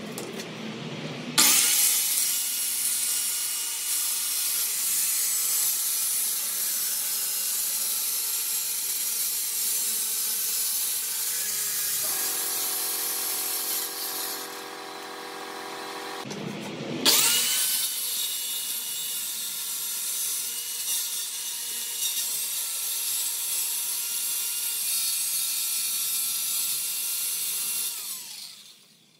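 Handheld electric circular saw cutting wooden cladding panels: the motor whine and blade cutting noise start sharply a second or so in. It runs more quietly with a steady tone for a few seconds in the middle, then starts again for a second cut and winds down near the end.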